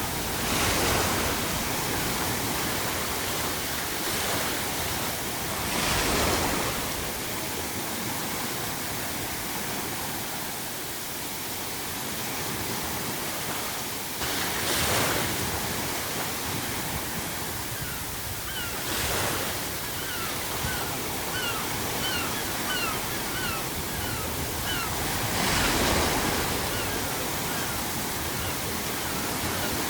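Ocean waves breaking on the shore, five swells several seconds apart, under a steady hiss of added pink noise. In the second half comes a run of short seagull calls.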